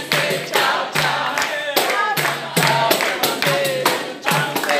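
A group singing a capoeira song together, with steady hand clapping and a pandeiro keeping the beat.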